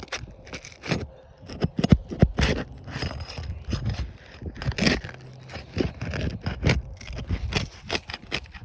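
A metal roof snake being pried under 3-tab asphalt shingles, giving a run of irregular scrapes and sharp cracks as the sealant strips let go. The shingles tear instead of releasing cleanly, a sign the roof is not repairable.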